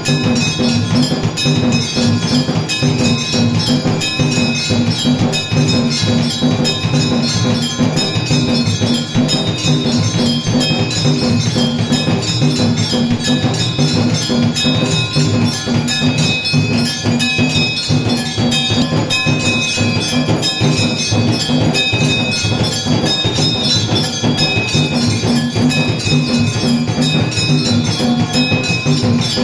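Temple bells clanging continuously with rapid percussion, the steady ringing din that accompanies an aarti.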